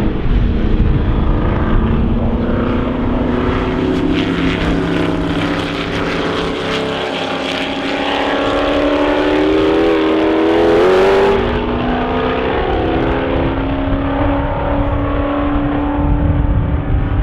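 Historic racing car engines running hard, one pitch climbing steadily over several seconds, then settling back to a lower steady note.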